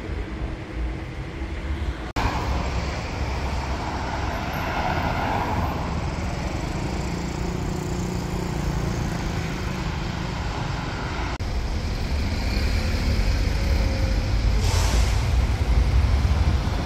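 City street traffic: cars and buses running past in a steady noise. A brief hiss comes near the end.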